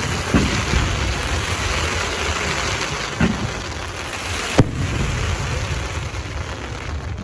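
Fireworks display: a dense, steady crackling over a low rumble, with one sharp bang about four and a half seconds in.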